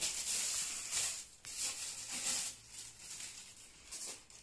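Rustling and crinkling of plastic as the parts of a cordless stick vacuum cleaner are handled for assembly. It comes in bursts and is loudest in the first second and a half.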